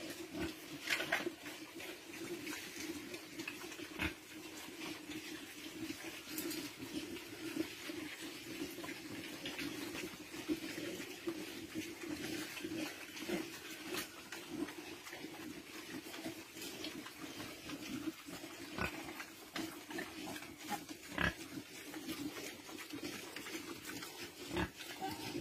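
Pigs grunting, with many short, sharp clicks and knocks scattered among the grunts.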